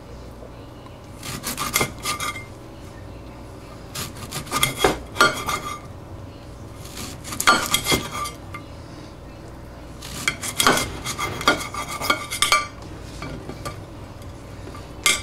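Kitchen knife slicing lemons on a plate, the blade scraping and clicking against the plate in four short runs of strokes.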